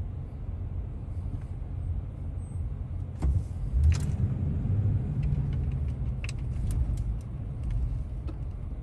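Low rumble of a car's engine and tyres heard from inside the cabin while driving slowly, with a few scattered light clicks and knocks, the strongest about three to four seconds in.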